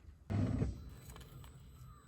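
A single dull thump about a third of a second in, fading within half a second, as a car crushes something soft under its tyre.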